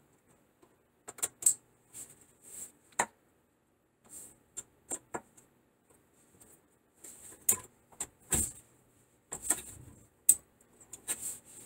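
Water lines of a Pfister Ladera widespread faucet being handled and pushed into its push-to-click plastic spout connector: irregular clicks and rustling of the hoses, with the loudest knock about eight seconds in.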